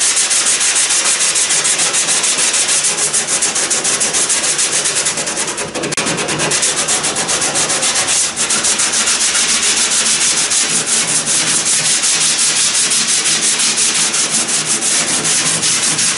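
Hand sanding with a sanding sponge on the epoxy-coated cedar strips of a kayak's cockpit coaming: quick back-and-forth scratchy strokes, several a second, going on without a break.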